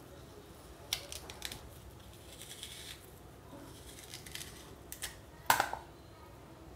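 Metal melon baller scooping the seeds and core out of a peeled pear half: faint scraping with a few light clicks, the loudest a sharp click about five and a half seconds in.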